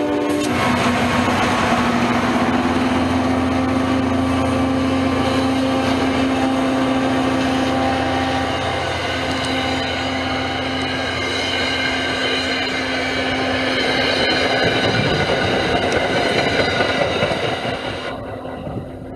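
An MBTA diesel commuter train passing close at speed: a horn cuts off at the very start, then the locomotive's engine drone and the coaches rolling by, wheels clattering, with a rising whine partway through. Near the end the sound drops suddenly to a quieter hush.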